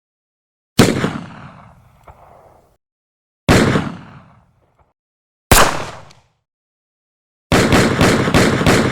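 Gunshot sound effects: three single shots a few seconds apart, each with a long echoing tail, then a rapid burst of automatic fire at about five shots a second.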